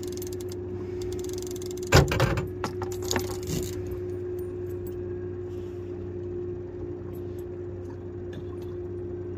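A boat motor hums steadily at one constant pitch. About two seconds in comes a loud knock, followed by rattling and a few lighter knocks for about a second and a half.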